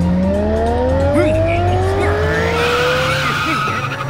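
Cartoon race-car sound effects: an engine accelerating, its pitch rising steadily for about three seconds, with tyres squealing from a little past halfway. Background music runs underneath.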